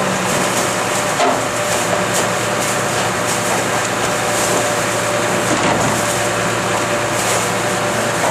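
Garbage truck standing with its engine running: a steady mechanical hum, with a single knock about a second in.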